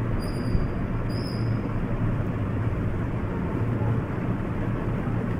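Steady background rumble and hiss with a low hum, and two brief faint high-pitched tones in the first second and a half.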